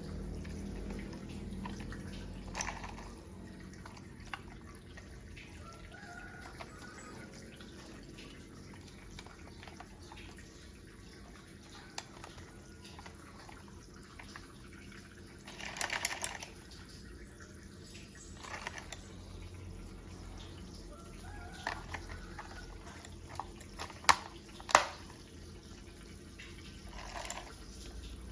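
Plastic toy parts being handled and fitted together: scattered light clicks and taps, a brief rustle a little past the middle, and two sharp, louder clicks close together near the end.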